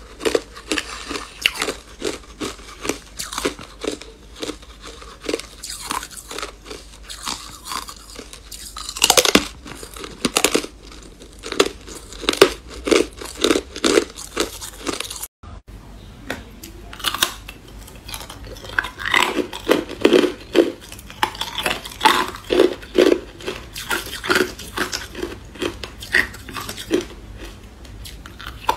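A person biting and chewing hard clear ice close to the microphone: a steady run of sharp crunches, about two a second, broken by a brief gap about halfway through.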